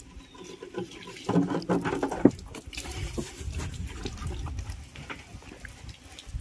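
Water poured from a steel bowl splashing onto a muddy power tiller and running off, with hands scrubbing at the mud. A single sharp knock about two seconds in.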